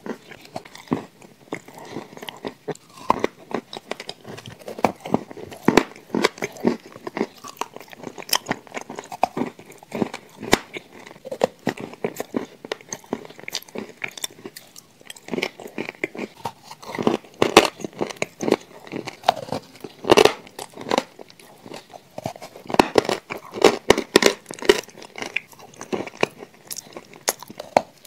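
Mouth chewing and crunching crumbly shortbread cookies close to the microphone: a dense, irregular run of sharp crackly crunches and wet chewing, with a fresh bite near the end.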